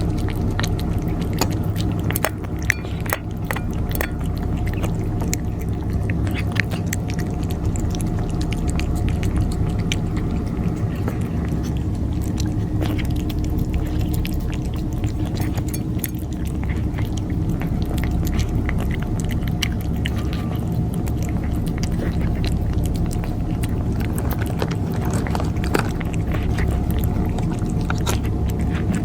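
Cats chewing their food, a steady run of many small clicks, over a steady low hum.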